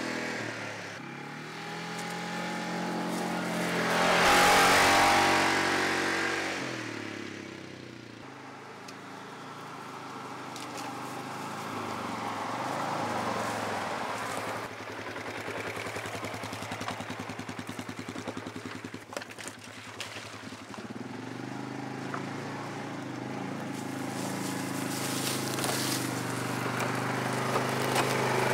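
Polaris ACE 325's single-cylinder four-stroke engine running as the machine is driven along a dirt trail, its note rising and falling with the throttle. It swells loudest as it passes close by about four to five seconds in, and shows a spell of rapid, even pulsing near the middle.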